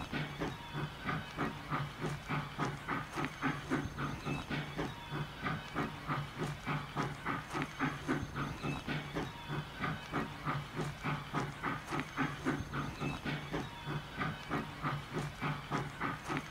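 Steam locomotive chuffing, its exhaust beats coming evenly at about four a second with a hiss of steam, over a steady low hum.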